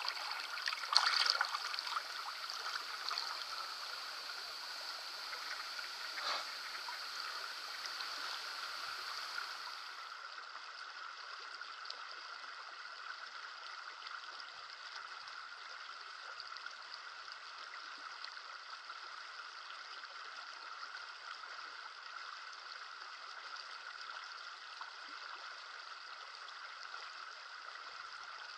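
A small stream running over stones, a steady rushing hiss. In the first seconds a few splashes come as hands handle a trout in the shallow water, the sharpest about a second in and another about six seconds in.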